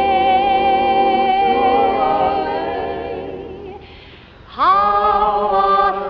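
A woman's soprano voice singing a slow ballad. A long note held with vibrato fades away about three and a half seconds in, and after a short pause she slides up into a new held note.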